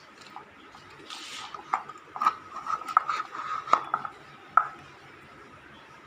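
Light metal clinks and taps, about a dozen over three seconds, with a faint ring between them, from tools and metal fittings being handled while a ceiling fan is fitted. A short hiss comes about a second in.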